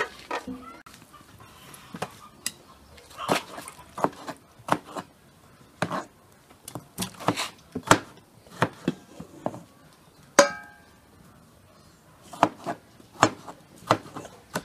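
Kitchen knife chopping tomatoes on a wooden cutting board: irregular sharp knocks, some in quick runs. About ten seconds in there is one louder metallic clink that rings briefly.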